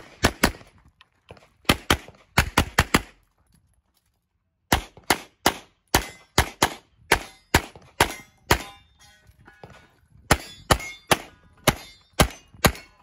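CZ Shadow 2 9mm pistol firing rapid strings of shots, mostly in quick pairs, with a break of about a second and a half after the first few seconds before the firing resumes.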